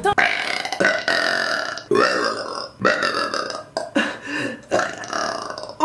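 A woman burping over and over: a string of about seven loud burps, each lasting under a second.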